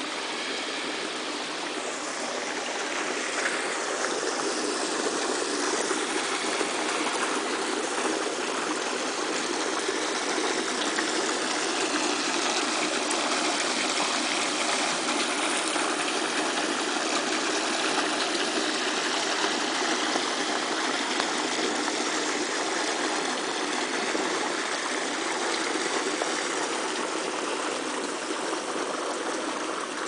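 Water running and splashing steadily into concrete koi ponds from inlet pipes, a continuous rushing.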